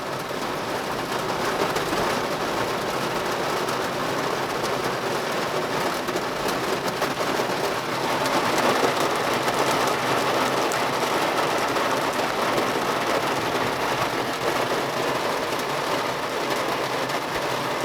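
Heavy rain falling steadily on a car's roof and windows, heard from inside the cabin: a dense, even hiss of drops.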